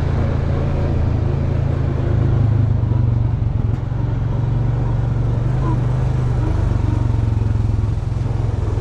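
Quad bike (ATV) engine running steadily under way on a dirt trail, heard from the rider's seat, a little louder about two to three seconds in and easing briefly near four seconds.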